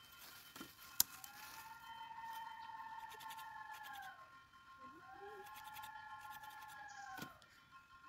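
A curved sickle blade scraping and shaving a bamboo stick in short strokes, with one sharp knock about a second in. Behind it, two long drawn-out calls that rise, hold and fall, each lasting about three seconds.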